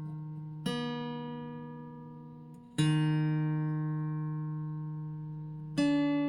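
Calm background music of slow single notes, each starting sharply and left to ring and fade away; three notes sound in turn.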